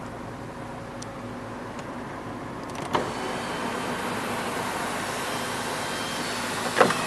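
MINI Countryman's electric sunroof motor closing the roof: a click about three seconds in, then a steady whirr for about four seconds, ending in a couple of knocks as it shuts.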